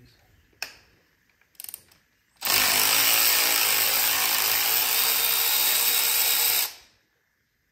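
A power tool running steadily for about four seconds, starting about two seconds in and cutting off abruptly, with a couple of light clicks before it.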